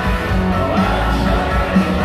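Live country-rock band playing loudly through an arena PA, with a steady beat accented about once a second.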